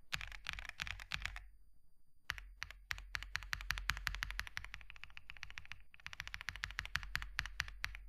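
Stock Royal Kludge RK M87 mechanical keyboard being typed on fast: rapid runs of keystroke clicks, with a short pause about a second and a half in.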